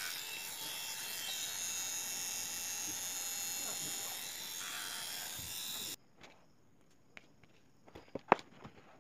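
A steady hiss that cuts off suddenly about six seconds in. After it come a few light clicks and taps as a small 775 DC motor and its wires are handled on a table, with one sharp click near the end.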